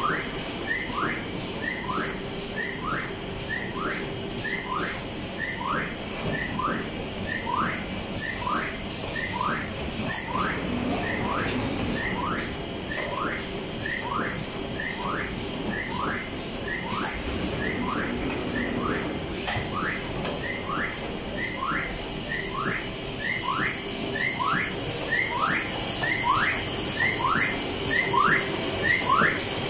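Automatic paper sheet stacker running: a short rising whine repeats at an even rate of about twice a second, in time with the machine's cycle, over a steady hum.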